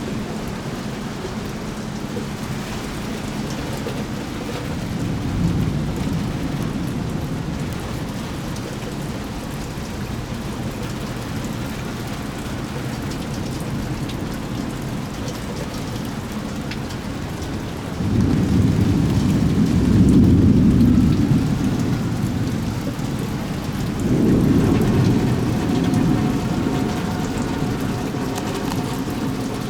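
Rain falling steadily in a thunderstorm. Thunder rumbles deep and loud about two-thirds of the way through, and again a few seconds later.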